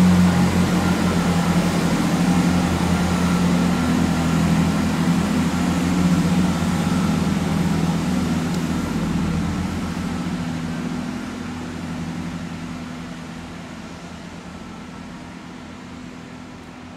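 Class 165 diesel multiple unit pulling away from the platform, its diesel engines drumming steadily under power. The sound fades from about halfway through as the train draws off into the distance.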